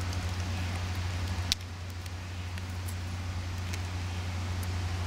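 Steady low outdoor rumble and hum, with a sharp click about a second and a half in, after which it is a little quieter.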